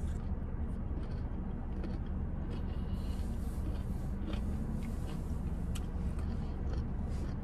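Steady low rumble and hum of a car heard from inside its cabin, with a few faint chewing clicks.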